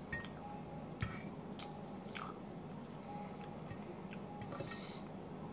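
Close-up chewing of poutine fries with gravy and cheese curds, with a few short clicks of a metal fork on the plate, the loudest about a second in.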